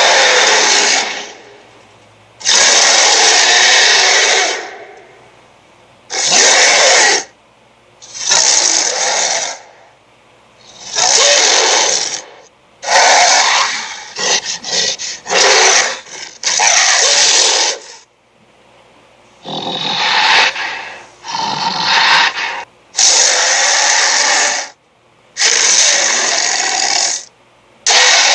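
Cartoon creature sound effects for SpongeBob SquarePants' Squidapus: a string of short, harsh, rasping bursts, each one to two seconds long, with brief pauses between them.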